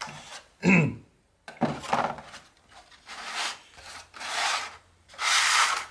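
3D-printed lightweight PLA wing parts being handled: a series of short rubbing and scraping sounds as the plastic pieces rub against each other and slide on a cutting mat, the loudest under a second in.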